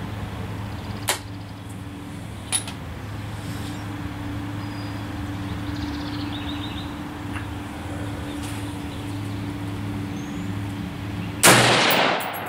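A single shot from a DPMS Oracle AR-15 firing Perfecta 55-grain full metal jacket .223 near the end, a sharp crack that dies away over about a second; it closes a five-shot group. Before it a steady low hum runs, with two faint sharp clicks early on.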